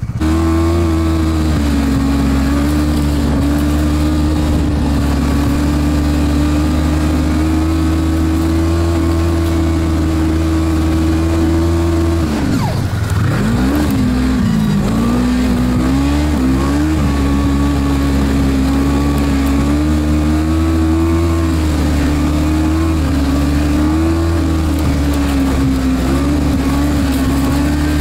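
Snowmobile engine running under way at high, steady revs. About twelve seconds in the revs drop sharply, then climb back with some wavering and hold steady again.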